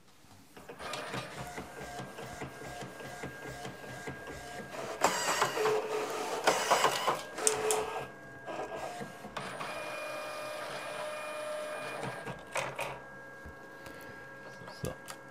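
Primera Impressa IP60 inkjet photo printer printing a photo strip: its motors whir and rattle as the paper feeds through. The whirring is loudest about five to eight seconds in, settles into a steady motor whine for a couple of seconds, and ends with a few clicks.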